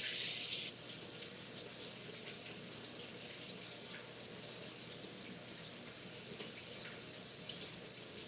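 Kitchen sink faucet running while hands are washed under it. The stream is louder for the first second, then drops suddenly to a quieter, steady running.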